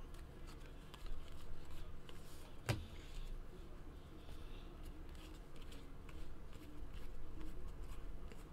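Hockey trading cards being handled: quiet rustling and light clicks as a stack of cards is squared on the table and a new pack is fanned through, with one sharper click about three seconds in, over a low steady hum.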